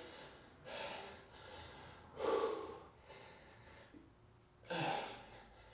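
A man breathing hard from exertion in the middle of a bodyweight exercise set: several short heavy breaths a second or two apart, the loudest about two seconds in and another near the end.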